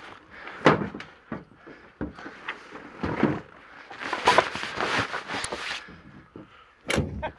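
A series of knocks and thuds from saddles and tack being handled and loaded into a pickup truck's bed, with a denser patch of clatter a little past the middle.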